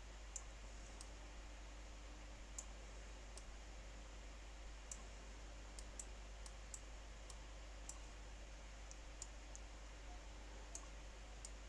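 Faint, irregular computer mouse clicks, about a dozen scattered sharp clicks, as sliders are adjusted in photo-editing software, over quiet room tone.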